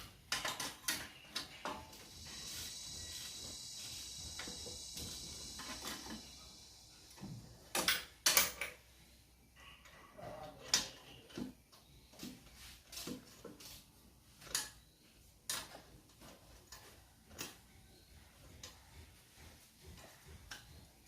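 Scattered metallic clicks, clinks and knocks of hand tools and engine parts being handled during engine assembly. A faint steady high whine runs for a few seconds near the start.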